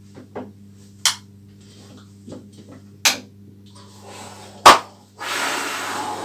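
Sharp clicks of wall light switches being flipped, three times, the loudest about four and a half seconds in, over a steady low mains hum. A steady hiss starts about five seconds in.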